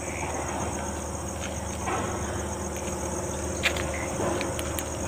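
Night insects, crickets, chirping steadily in a fast pulsing trill, over a low hum, with a few faint knocks.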